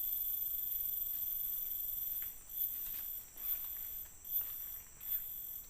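Forest insects droning in several steady high-pitched tones. From about two seconds in the chorus begins to pulse, a little more often than once a second.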